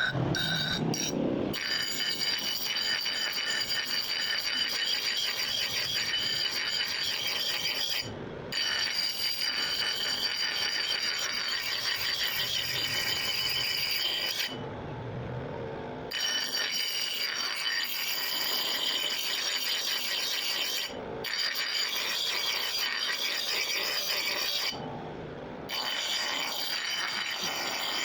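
A tool grinding or scraping against the steel of an old axe head, with a steady high squeal over a rasping scrape. It breaks off briefly four times, the longest gap about a second and a half.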